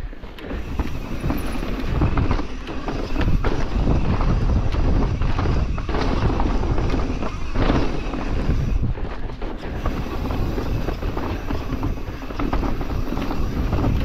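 Mountain bike running fast down a dirt trail: wind rushing over the camera microphone, tyres rolling over the ground, and the bike rattling and knocking over bumps.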